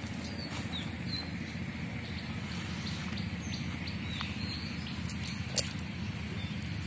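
Scattered short bird chirps over a steady low background rumble, with one sharp click a little past halfway.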